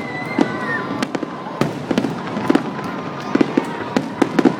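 Fireworks going off: an irregular run of sharp bangs, a dozen or more, with a thin high whistle fading out near the start and a steady high tone underneath after it.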